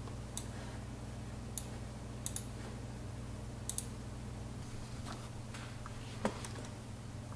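Computer mouse button clicking: single clicks and a quick double click, then a duller knock about six seconds in. A steady low hum runs underneath.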